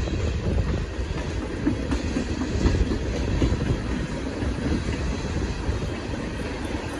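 Freight cars of a long CSX train rolling past, a steady rumble of steel wheels on the rails.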